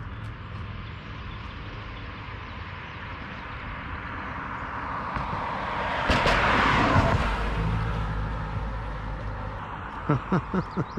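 A motor vehicle passing by, building to its loudest about six to seven seconds in and then fading, over a steady background hum. Near the end comes a quick run of about five short pitched sounds.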